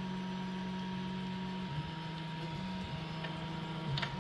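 MPCNC 3D printer running a print: its stepper motors hum at a low pitch that steps up and down as the print head changes speed, over the steady whir of cooling fans.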